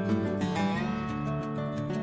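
Background music led by a plucked acoustic guitar, with held notes under it.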